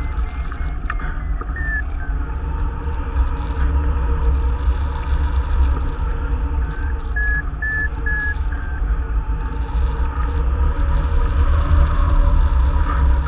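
Wind rushing and buffeting over the microphone of a camera mounted on a tandem hang glider in flight. A variometer gives short high beeps near the start and again in the middle, the sound it makes when the glider is climbing in lift.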